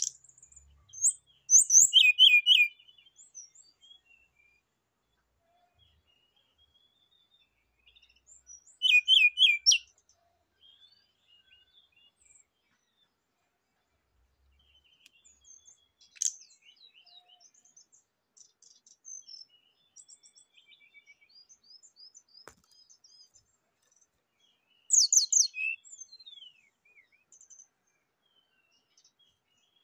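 Brown-chested jungle flycatcher singing: three loud bursts of rapid high notes, about two, nine and twenty-five seconds in, with soft scattered twittering between.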